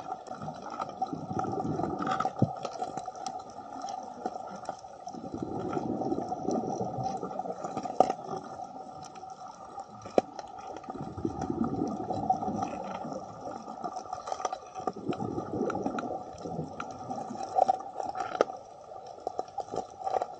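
A scuba diver's exhaled bubbles from the regulator, heard underwater as a burst of bubbling lasting a couple of seconds that comes back about every five seconds with each breath. Between breaths a steady hum and scattered sharp clicks go on.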